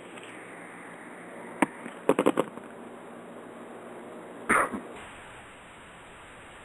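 Steady hiss of an open phone line. A single click comes about one and a half seconds in, then a quick run of four clicks, and a short louder burst about four and a half seconds in.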